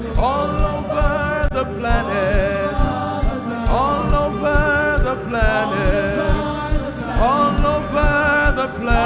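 Live gospel worship music: a singing voice carries long, wordless phrases that swoop up into held, wavering notes, over a band with a steady drum beat. New phrases begin about three times.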